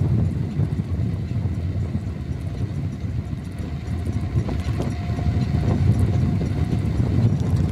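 Wind buffeting the microphone of a handlebar-mounted camera while riding a bicycle along a road: a heavy, uneven low rumble that rises and falls with the gusts.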